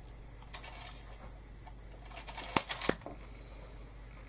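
Light handling noises of a hot glue gun and fabric trim being worked along a hat brim: a soft rustle about half a second in, then a quick cluster of small clicks and taps with two sharp clicks near the three-second mark.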